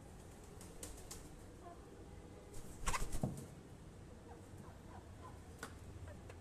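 Hens giving a few soft, short clucks, with a brief burst of knocking and rustling about three seconds in.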